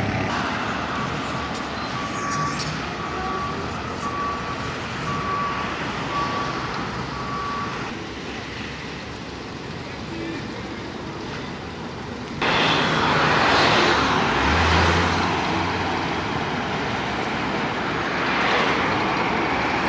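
Road traffic passing, with a vehicle's reversing beeper sounding about once a second for the first several seconds. About twelve seconds in, the traffic noise jumps suddenly louder.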